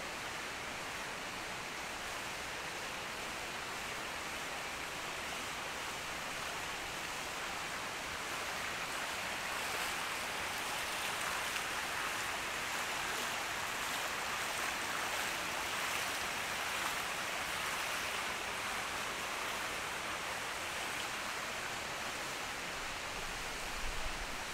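Steady rush of water falling at the Ryuo waterfall, growing a little louder in the middle and easing off again. A brief low thump near the end.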